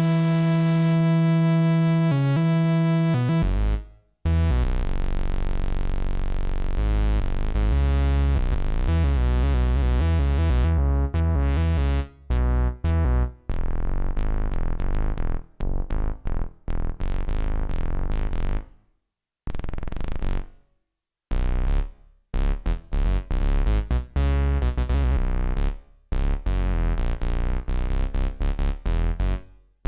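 Home-built analogue synthesizer (Ad-vantage 03M) playing. A held buzzy note first, then deep bass notes whose brightness closes down about ten seconds in, followed by short staccato notes in stuttering runs with brief gaps of silence.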